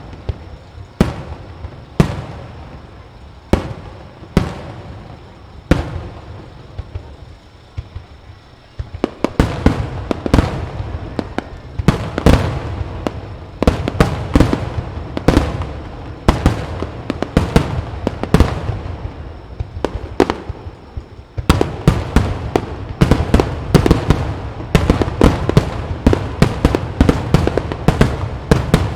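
Aerial fireworks of a grand star mine barrage exploding: single bangs a second or two apart at first, then from about nine seconds a dense, rapid string of bursts that eases briefly around twenty seconds before turning dense again.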